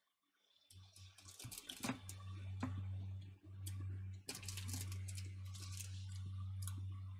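A person chewing a crunchy Cadbury Shortcake biscuit close to the microphone, with scattered small crunches and mouth clicks over a steady low hum.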